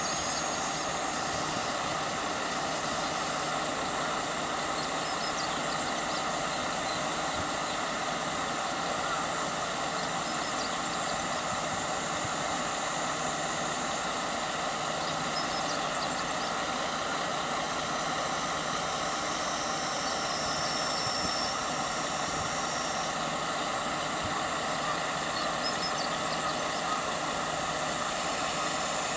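Diesel engine of a JR Kyushu KiHa 40-series railcar idling steadily while the car stands stopped at the platform.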